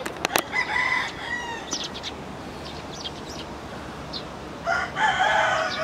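Chickens calling, with a rooster crowing near the end in one long call that falls slightly. A couple of sharp clicks come right at the start.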